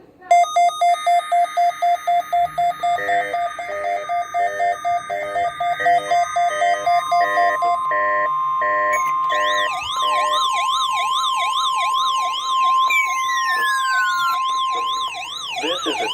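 Several electronic emergency-alert tones sounding at once for a NOAA Weather Radio weekly test. Rapid regular beeping starts just after the beginning and a second beep pattern joins it. About six seconds in, a steady high tone starts and holds for about nine seconds, and from about ten seconds in a warbling tone rises and falls about twice a second.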